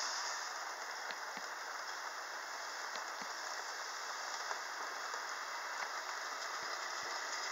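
Steady rain, an even hiss with scattered small drop ticks.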